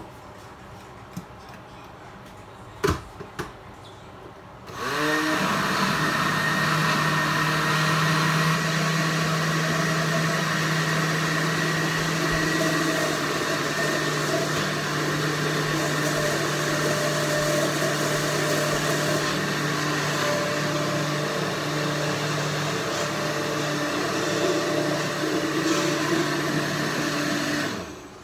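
Countertop blender blending a milk-and-berry smoothie. A few knocks first, then it is switched on about five seconds in, its motor spinning up and running steadily until it cuts off just before the end.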